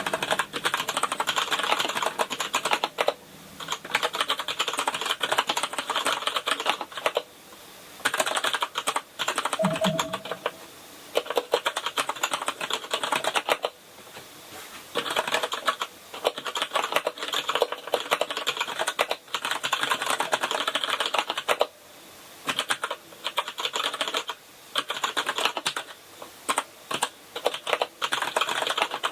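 Fast continuous typing on a Kinesis Advantage contoured keyboard with Cherry MX Brown tactile switches. Runs of rapid key clicks are broken every few seconds by short pauses.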